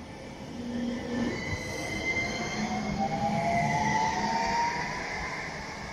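Electric tram pulling away from a platform: the drive whine rises steadily in pitch as it gathers speed, over a steady high squeal from the wheels and rails. It swells about a second in and eases off near the end as the tram moves off.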